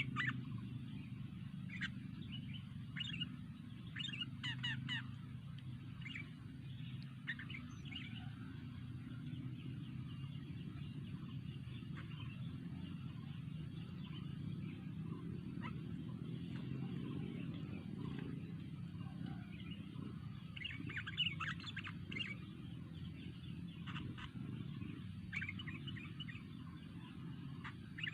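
Sooty-headed bulbul (kutilang) calling in short bursts of bright chirps, with a busier run about three quarters of the way through, over a steady low hum.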